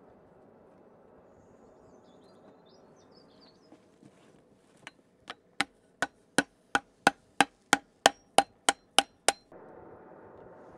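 A hammer beating a heated leaf shape cut from 3 mm steel plate on a wooden anvil block: a quick run of about fourteen sharp blows, about three a second, starting about halfway through.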